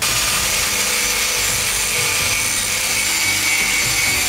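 Angle grinder with an abrasive disc grinding the rust off an old iron axe head: steady running with a high motor whine and the rasp of the disc on the metal. It starts abruptly at the outset.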